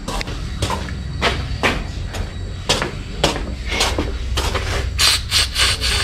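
Knocks and scrapes on concrete pen fittings about twice a second over a steady low hum. From about five seconds in comes a hiss with quick ticks as a pig nipple drinker is pressed, while the newly filled water line has not yet pushed water through.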